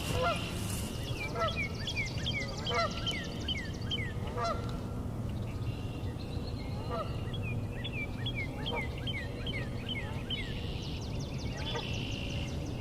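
Northern cardinal singing: two phrases of quick, evenly repeated down-slurred whistles with a pause between them. Geese honking now and then over the song.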